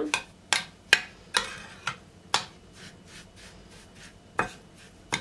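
Metal spoon mixing melted butter into crushed cocoa biscuits in a glass dish. It clinks sharply against the glass about twice a second at first, then scrapes more softly through the damp crumbs, with two more clinks near the end.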